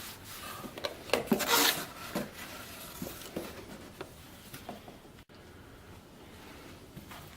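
Rustling and scraping of cardboard and packaging being handled inside a box, with small knocks, busiest about one to two seconds in and then only faint handling.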